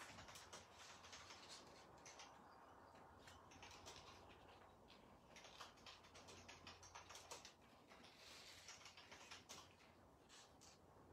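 Faint pattering and rustling of embossing powder being poured over stamped vellum on scrap paper and tipped off: small irregular ticks with short patches of hiss.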